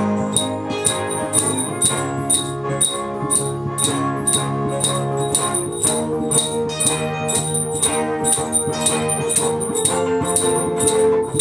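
Electronic keyboard music: sustained brass- and organ-like chords over a steady high tick about three times a second.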